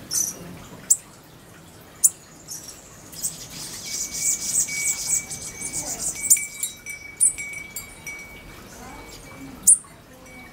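Hanging metal tube wind chime ringing with a held high tone through the middle, among a scattering of short, very high-pitched bird chirps at the feeders, the loudest near the end.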